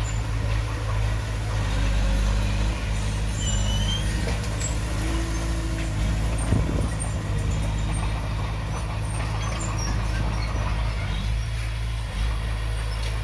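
Heavy-equipment diesel engine running steadily at a low, even drone, with a brief knock about six and a half seconds in.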